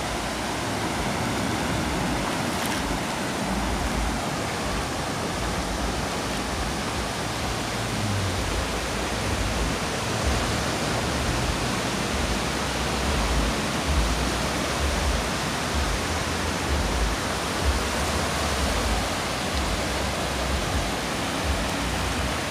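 Small waves washing up the sand at the water's edge, a steady rush of surf, with a low, uneven rumble of wind on the microphone.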